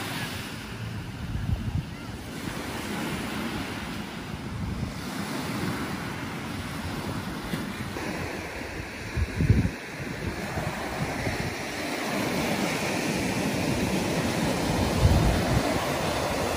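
Sea surf breaking and washing up a sandy beach, a steady rush that swells and eases with each wave. A few low rumbles of wind on the microphone, the strongest about halfway through.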